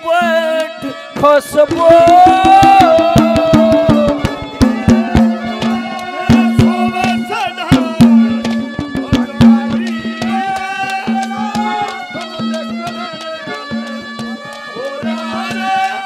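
Haryanvi ragni folk music played without singing: a wavering melody over a steady low drone, driven by fast hand-drum strokes.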